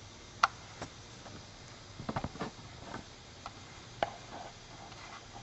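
A few sharp clicks and taps of small objects being handled: one about half a second in, a quick run of four or five around two seconds, another near four seconds.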